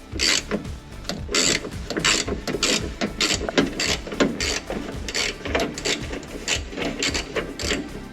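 Ratchet wrench clicking in quick repeated strokes, about two a second, as a nut is backed off the starter relay's cable terminal.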